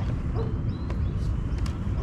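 Steady low rumble of wind buffeting the microphone, with a few faint small clicks.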